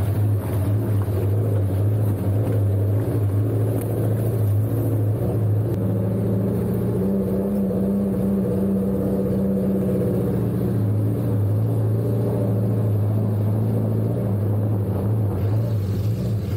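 Engine of a small off-road 4x4 running as it drives along a dirt trail, a steady low drone whose note shifts a little in the middle.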